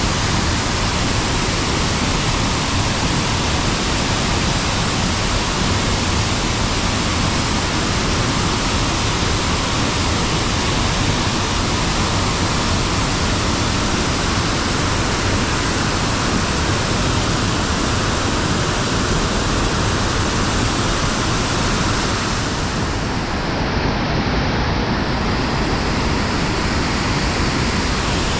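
Steady rushing of muddy floodwater: a waterfall pouring off rock ledges into a swollen, fast-flowing river.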